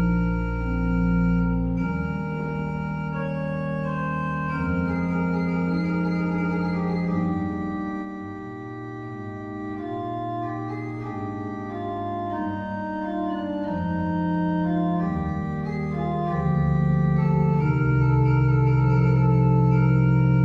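Organ music: slow chords held over sustained bass notes, softer in the middle and fuller near the end.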